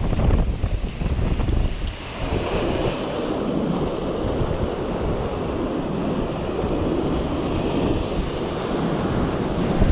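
Sea surf washing and foaming over granite shore rocks, with wind buffeting the microphone, heaviest as a low rumble in the first two seconds, then a steadier rushing wash.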